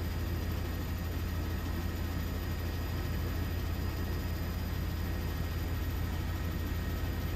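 Steady low aircraft rumble with a hiss on top, unchanging throughout.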